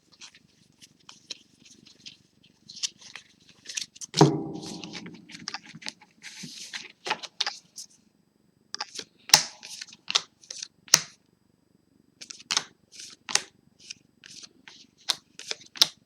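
Trading cards being flipped and slid through the hands: a run of crisp clicks and paper rustles. About four seconds in comes a single louder, low pitched sound that fades out over about a second.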